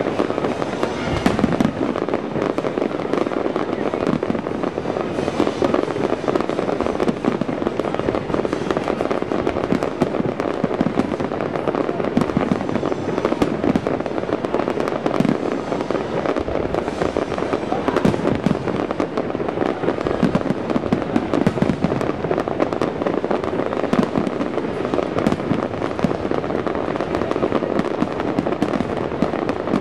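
Aerial fireworks shells bursting in a dense, continuous barrage of overlapping booms and bangs, with no let-up.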